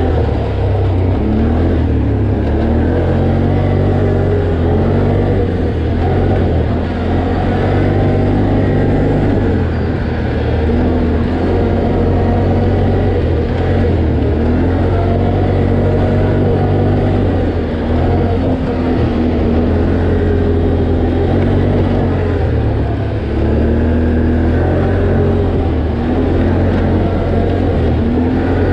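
Can-Am ATV engine running under way on a dirt trail, its pitch shifting up and down with the throttle.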